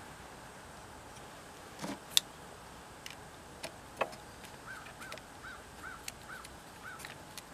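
Sharp clicks and knocks of a screwdriver and hand tools against the generator frame, the loudest about two seconds in. From the middle on, a bird calls six short notes in a row.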